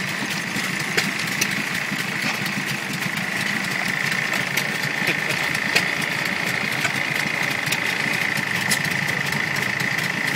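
Antique washing machine running: a steady mechanical drone with a constant high whine and scattered irregular clicks from its moving parts.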